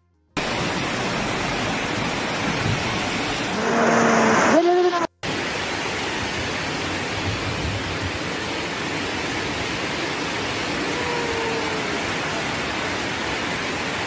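Muddy floodwater rushing in a steady torrent. A person's voice calls out briefly about four seconds in, and the sound cuts out for a moment twice where clips are spliced.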